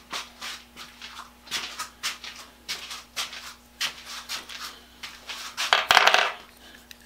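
Irregular clicks and scrapes of small metal tool parts being handled on a workbench, with a louder rattle of handling about six seconds in.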